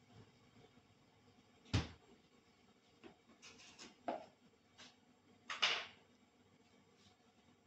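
A few short, irregular knocks and pops. The loudest comes about two seconds in, a quick cluster follows between three and four seconds in, and a slightly longer rattle comes near six seconds.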